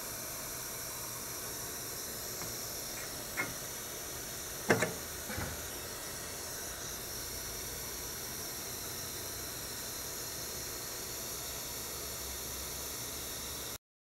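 Steady hiss with a few short knocks about three and a half to five and a half seconds in, the loudest near five seconds. The knocks come from a fly-cutter tool holder being pushed into a CNC router's automatic tool-change spindle and clamped.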